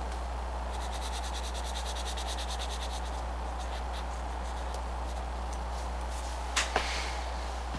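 Colored pencil scratching back and forth on paper in quick, even shading strokes for a couple of seconds, then fainter strokes, and two sharp clicks close together near the end. A steady low electrical hum runs underneath.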